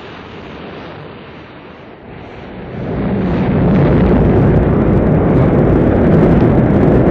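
Rocket launch: the engine noise, already running from ignition, swells about three seconds in into a loud, low, steady rumble as the rocket lifts off.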